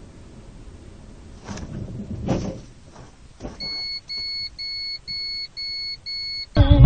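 Electronic warning beeper in a car, sounding six even high beeps about two a second, after a low cabin rumble broken by a few short dull knocks. Loud music cuts in at the very end.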